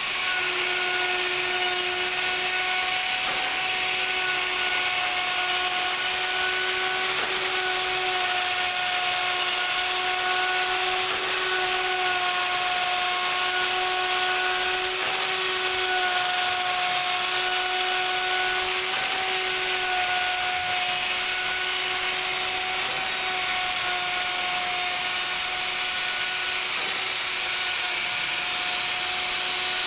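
Electric wood router running steadily with a constant high whine, cutting into wood turning slowly on a lathe, with a faint knock about every four seconds.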